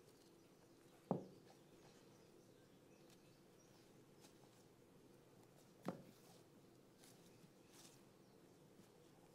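Near silence broken by two dull knocks of a pointe shoe's hard box set against a wooden floor, about a second in and again near six seconds in.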